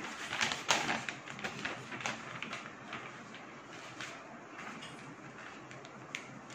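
Newspaper rustling and crinkling as a sheet is folded and pressed flat by hand on a table: many quick crackles in the first two to three seconds, then a softer rustle.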